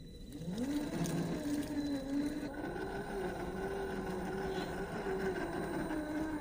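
Brushed 550 electric motor and gear drivetrain of a 1/10-scale RC rock crawler whining; the pitch climbs about half a second in, then wavers up and down as the load changes.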